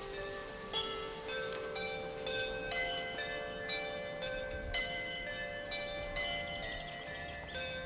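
Bell-like chiming notes struck one after another, about two a second, each ringing on so that several sound together.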